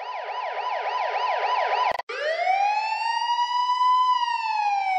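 Emergency vehicle siren: a fast yelp of about four sweeps a second, broken off with a click about two seconds in, then a slow wail that rises for about two seconds and begins to fall.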